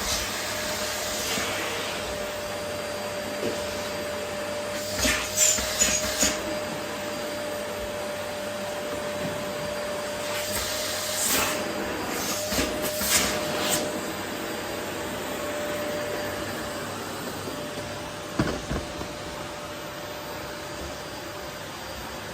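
Vacuum cleaner running steadily with an even rush of air and a steady hum. A few short rattling bursts come about five seconds in and again around eleven to thirteen seconds in, and there is a single knock near the end.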